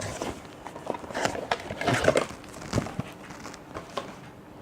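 Rustling and light clicks and knocks of paper booklets and packaging being handled.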